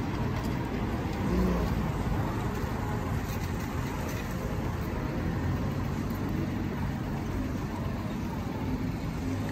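Steady road and engine noise of a car driving.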